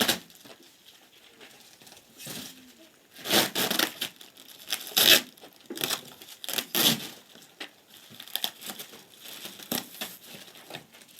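Packaging being torn and crumpled off a cardboard box: a string of short, irregular rips and crinkles.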